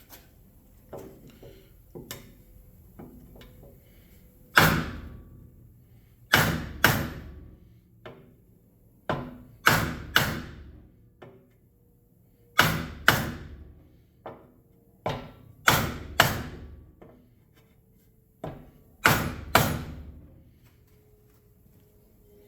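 Heavy hammer blows on a bent motorcycle wheel rim, about fourteen strikes in groups of two or three, with short pauses between groups. The bend is stubborn and hardly moves under the blows.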